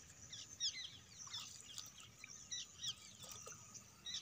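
Faint chirping of small birds: many short notes falling in pitch, several a second.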